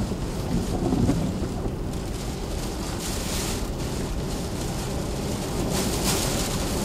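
Storm wind buffeting the microphone with a heavy low rumble, rising in two gusts of rushing hiss, one about three seconds in and another near the end.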